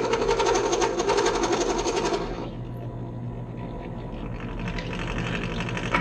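Bench drill press running, its bit cutting into 1/4-inch aluminum flat with a loud, dense rapid chatter over the steady motor hum. About two seconds in, the cutting noise drops away, leaving the motor running, and lighter cutting noise comes back near the end.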